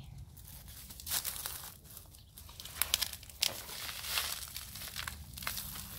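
Crinkly rustling and crackling of purple cabbage leaves being handled and pulled during harvesting, in irregular spells, with a few sharper snaps about three seconds in.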